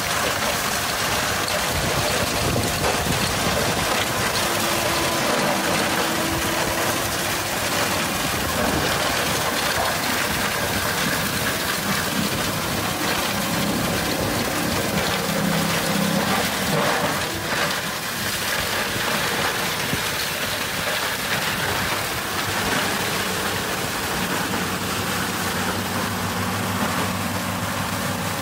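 Tractor-mounted Seppi Miniforst shredder at work, its rotor chewing through branches and pruning debris with a dense, steady noise full of small knocks, over the tractor engine's running hum. The engine's hum comes through more clearly near the end.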